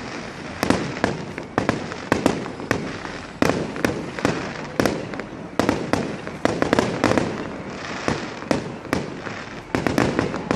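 Fireworks display: a rapid, irregular run of sharp bangs and cracks, several a second, each one echoing briefly.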